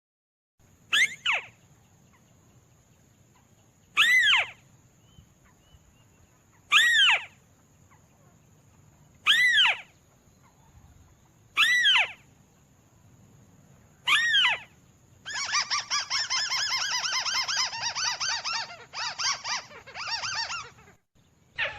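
Recorded tikusan bird calls played as a lure: six short, sharply falling calls about two and a half seconds apart, then about five seconds of a fast rattling series of notes.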